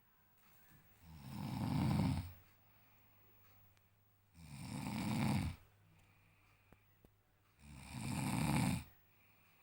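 A man snoring in his sleep: three long snores about three seconds apart, each swelling and then cutting off sharply, with quiet breathing gaps between them.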